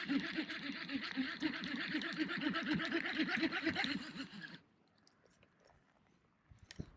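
Fishing reel being cranked in a steady retrieve: a rapid, crunchy whirring that stops abruptly about four and a half seconds in.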